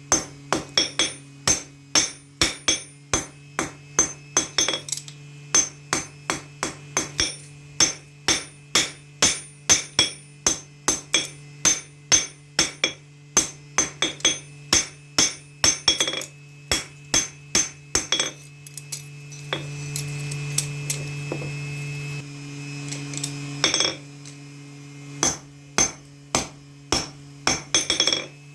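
Hammer striking steel on an anvil while forging a knife blade, at a steady rate of about two to three ringing blows a second over a constant low hum. About two-thirds of the way through, the hammering stops for a few seconds while a steady rushing noise and a louder hum take over; then the blows start again.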